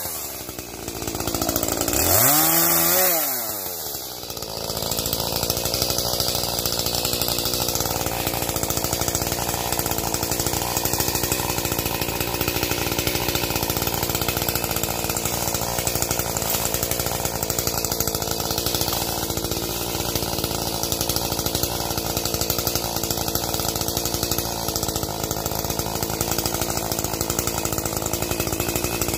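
Gas chainsaw revving up and dropping back once in the first few seconds, then running at a steady high speed, cutting limbs into firewood.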